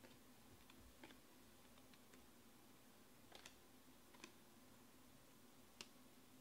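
Faint, scattered clicks of stiff chromium Panini Prizm baseball cards being flicked and slid off the top of a stack in the hand, about six of them irregularly spaced over a low steady room hum.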